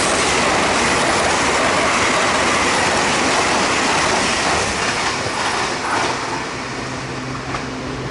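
TEMU2000 Puyuma tilting electric multiple unit passing through a station: a loud, steady rush of wheel and rail noise that fades from about six seconds in as the last car goes by.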